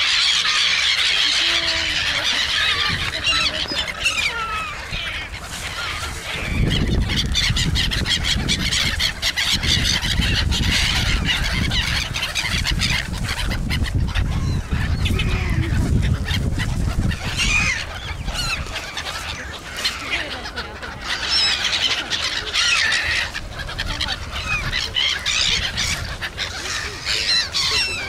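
A large flock of black-headed gulls calling non-stop, many overlapping high cries, with a low rumble underneath from about six to seventeen seconds in.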